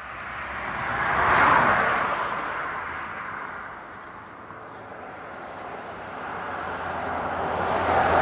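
Two road vehicles passing by, one after the other: the noise swells and fades over a few seconds, peaking about a second and a half in, and a second one builds up near the end.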